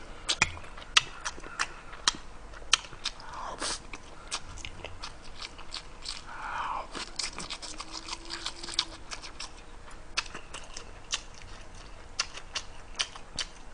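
A man chewing grilled ham and rice close to the microphone, with many sharp mouth smacks and clicks scattered through the chewing.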